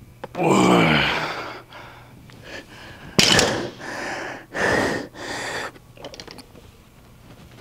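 A man groans with effort, the voice falling in pitch about half a second in, then blows out two hard, hissing breaths, with lighter breaths between. This is heavy breathing from the strain of lifting weights.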